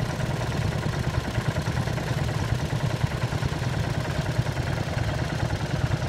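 Small engine of a vintage walk-behind tractor running steadily with a fast, even chug while it pulls a plough through the soil.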